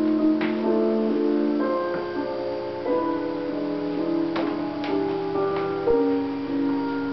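Slow piano music, sustained notes changing about every second.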